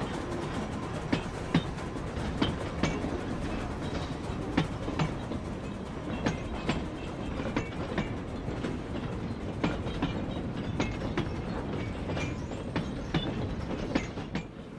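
Sn3 model train cars rolling along the track, their wheels clicking irregularly over rail joints above a steady running noise.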